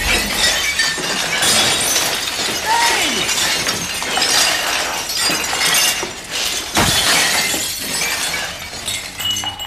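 Shelves of ceramic mugs knocked down by a swinging boom pole, crashing and shattering on a hard floor. It is a long, continuous clatter of breaking crockery, with many separate smashes piling on one another.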